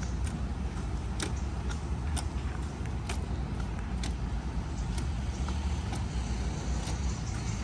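A rugby ball slapping into the hands about once a second as it is passed around the waist, over a steady low rumble.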